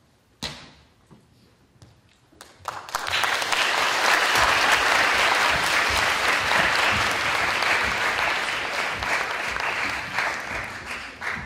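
Audience applause at the end of a performance: a few scattered claps about two seconds in swell into dense, steady clapping, which tapers off near the end. A single sharp knock sounds about half a second in.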